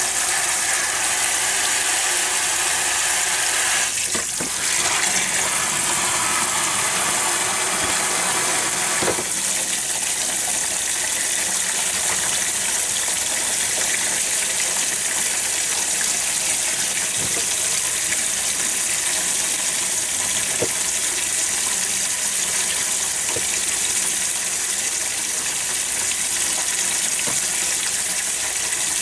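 Kitchen tap running steadily, water spraying from a pull-out hose faucet onto plastic-bagged chicken ham in a stainless steel sink to quick-cool it and stop it cooking further. The splashing changes about four seconds in and again about nine seconds in.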